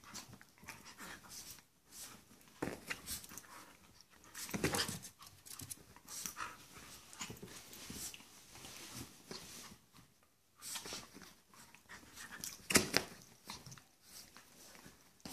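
A Chihuahua and a Portuguese Water Dog play-fighting on a blanket-covered dog bed: irregular scuffling and rustling of the bedding mixed with short dog sounds, with the loudest burst near the end.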